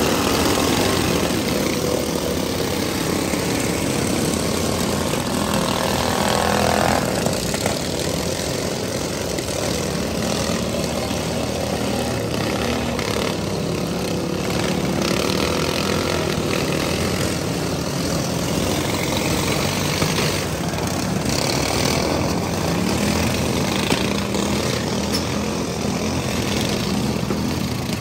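Several pro-modified riding lawn mower engines running together, one revving up over the first few seconds, with a few sharp knocks later on.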